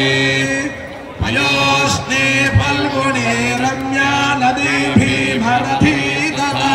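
A man's voice singing a chant-like devotional song over music.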